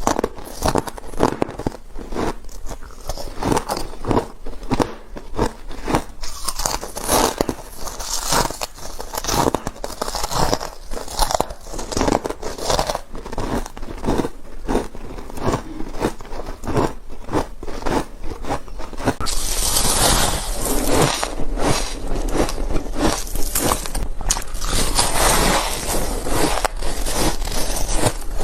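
Ice being bitten and chewed, a rapid run of crisp crunches about two to three a second. About two-thirds of the way in it changes abruptly to denser, fuller crunching.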